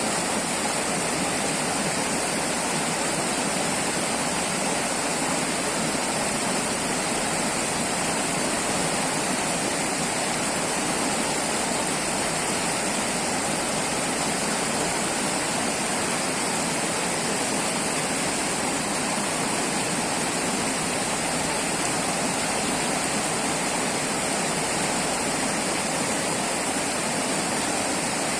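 River water flowing and rushing steadily, an even splashing hiss with no pauses or changes.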